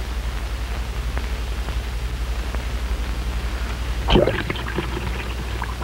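Steady low hum and hiss of an old optical film soundtrack. About four seconds in comes a single sudden splash into water, followed by scattered small crackles.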